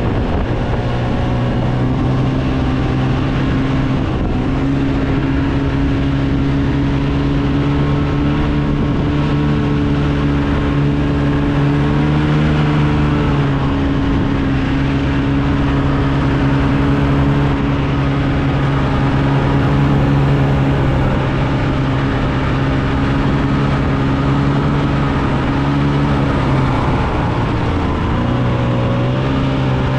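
A vehicle engine running at a steady, even speed, with a brief slowing near the end before it picks up again.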